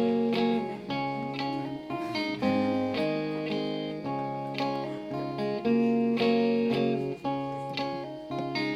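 Background music: an acoustic song's instrumental passage with plucked and strummed guitar chords.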